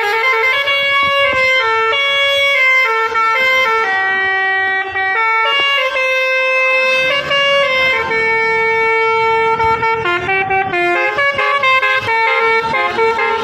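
Bus 'basuri' telolet horn playing a tune: a loud, unbroken run of horn-like notes stepping up and down in pitch.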